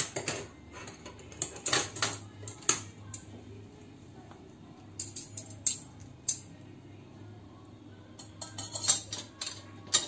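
Steel wire plate lifter clinking and scraping against a ceramic plate and a stainless wok while the plate of steamed fish is gripped for lifting out. The clicks come in several short clusters over a faint low steady hum.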